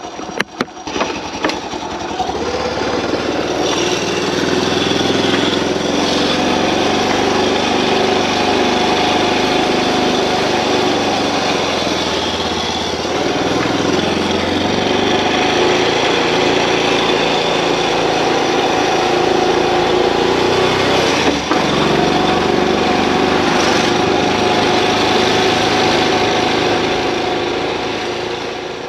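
Honda Super Cub's single-cylinder engine running steadily. A few irregular clicks come in the first second before the sound settles.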